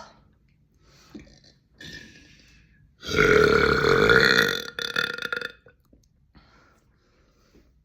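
A person's long, loud deliberate burp starting about three seconds in and lasting about two and a half seconds, with a brief break near its end. Faint breathy sounds come before it.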